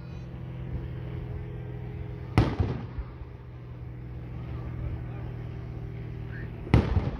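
Aerial firework shells bursting: two sharp booms, about two and a half seconds in and again near the end, each with a short rumbling tail. A steady low hum runs underneath.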